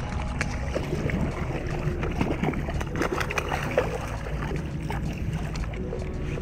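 Wind buffeting the microphone, with water splashing as a hooked bluefish thrashes at the surface while being landed; the splashing is busiest about two to four seconds in.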